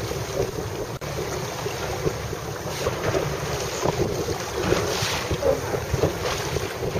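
Steady wind buffeting the microphone over choppy open water, a rough low rumble with waves splashing. The sound drops out for an instant about a second in.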